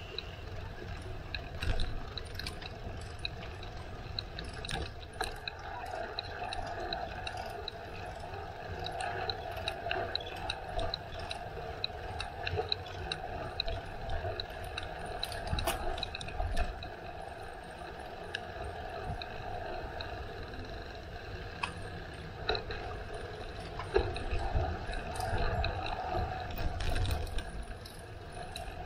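Riding a bicycle: wind rumbling on the microphone over steady tyre noise, with the bike's drivetrain ticking and rattling throughout.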